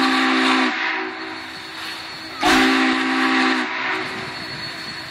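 Union Pacific 844 steam locomotive's chime whistle sounding two blasts of several tones at once: the first cuts off under a second in, the second starts about two and a half seconds in and lasts about a second, each trailing off.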